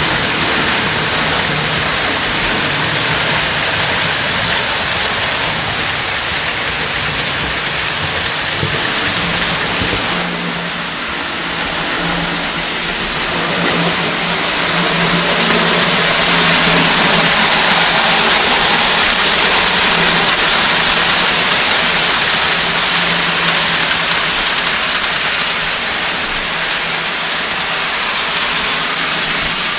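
O-scale three-rail toy trains running on a layout: a steady whirring rumble of motors and metal wheels on track, with a low hum. About ten seconds in the sound changes, then swells for several seconds as a train runs close by and eases off again.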